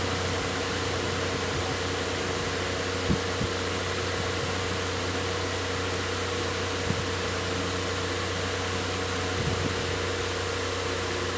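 Electric fan running steadily: an even rush of air over a constant low motor hum and a steady higher tone. A few faint soft knocks come and go.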